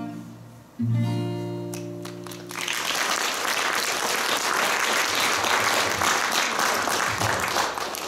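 Acoustic guitar strikes a final chord about a second in, closing the song, and lets it ring out. About three seconds in, audience applause takes over and stays loud.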